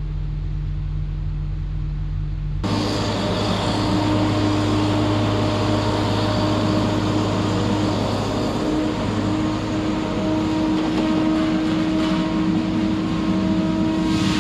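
Diesel engine of a hot-saw feller buncher running steadily. A little over two seconds in, the sound jumps louder and harsher with a steady hum, as the machine works.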